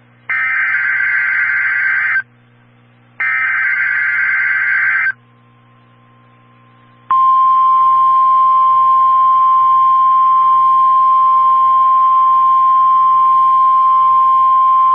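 Emergency Alert System signal on NOAA Weather Radio: two harsh, screechy bursts of SAME digital header data, each about two seconds long and a second apart, then a short gap. About seven seconds in, the steady single-pitch 1050 Hz warning alarm tone starts and holds. Together they open a warning broadcast, here a hurricane warning.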